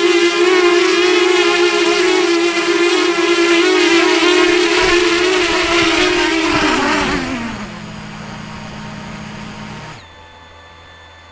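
Twin brushless electric motors and propellers of a Dart XL flying wing converted to tilt rotors, hovering with a steady whine. About seven seconds in the pitch drops as the model touches down. The motors then turn slowly at a lower pitch and cut off about ten seconds in.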